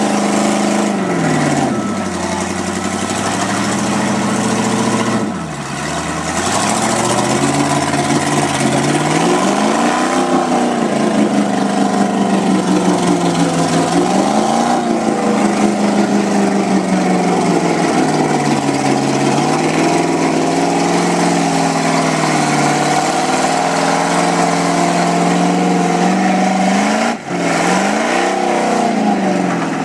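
Mud-bogging truck's engine revving up and falling back again and again, every few seconds, as it struggles with its wheels spinning in deep mud.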